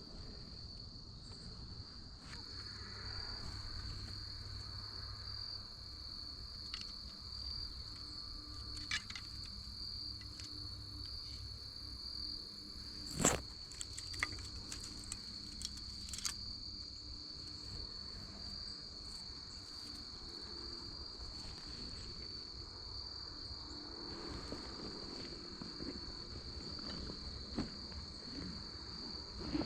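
Steady chorus of crickets trilling at one high, unbroken pitch. A few sharp clicks stand out, the loudest about 13 seconds in.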